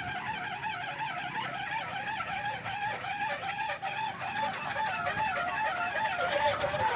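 Kolecer, a wooden propeller windmill, spinning in strong wind and giving a steady humming drone whose pitch wobbles up and down several times a second.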